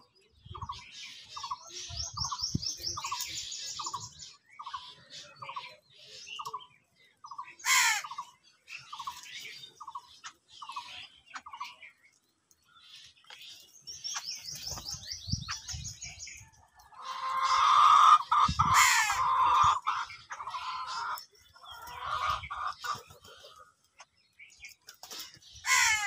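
House crows cawing while they feed, loudest in a long spell of calling about two-thirds of the way through. Behind them, another bird repeats a short note about three times a second through the first half, with bursts of high chirping from smaller birds.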